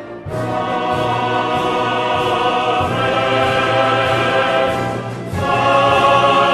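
Choral music: a choir singing sustained chords with instrumental accompaniment over a steady beat, growing louder about five seconds in.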